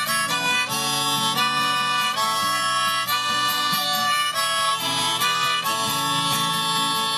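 Harmonica solo of held, changing notes over a strummed acoustic guitar: the instrumental break between sung verses.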